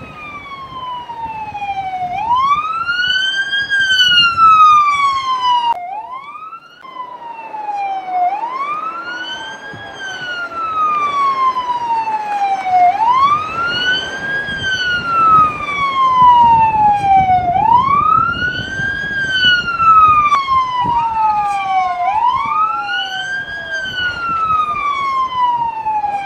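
Police vehicle siren on a wail, sweeping up quickly and falling back more slowly, repeating about every five seconds, over road and engine noise. It drops out briefly about six seconds in.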